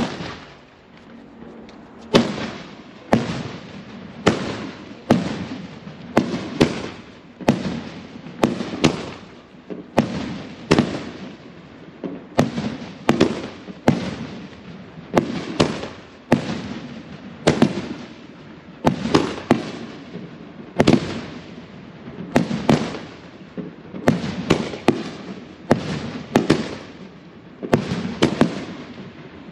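A 25-shot firework cake firing shot after shot, about one a second. Each shot gives a sharp launch report, often followed closely by the bang of the shell bursting overhead.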